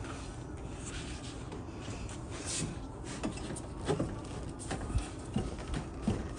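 Light knocks, clicks and rubbing from hands working parts inside a car's rear door during a side-glass replacement, a few sharper knocks in the second half, over a steady hiss.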